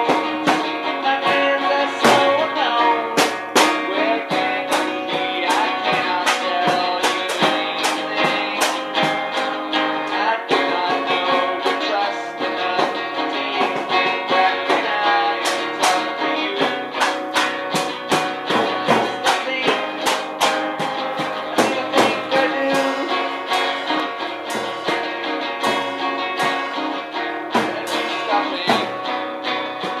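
Guitar-led music with a quick run of sharp plucked notes.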